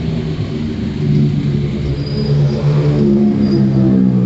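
Car and motorbike engines in slow traffic close by, running steadily, with an engine note rising about three seconds in as a car pulls past.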